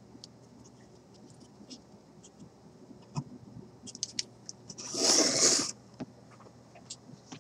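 Small clicks and scratches of fingers and pliers working at an old paper capacitor's casing, with a loud scraping rustle lasting about a second midway.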